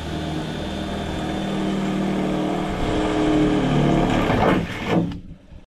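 Electric drill with a 5.5 mm bit running steadily as it bores a hole through the van's sheet-metal bodywork for the awning mounting plates. Its pitch falls as it stops about five seconds in.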